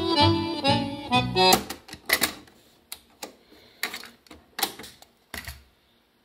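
Tango music with accordion-like tones plays from the Sanyo M 9998 K boombox's cassette deck and stops about a second and a half in when the stop/eject key is pressed. A series of plastic clicks and clunks follows as the cassette door opens, a cassette is handled in and out of the deck, and the door shuts.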